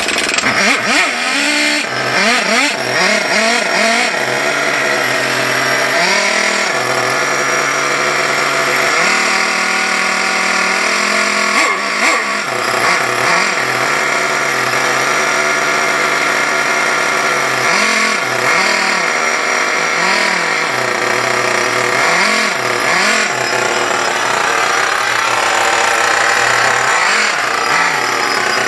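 The 4.1 nitro glow engine of an RC car running on its first start after a rebuild, a steady high buzz. It is revved up and back down several times, near the start, at about twelve seconds, and again around eighteen to twenty-three seconds.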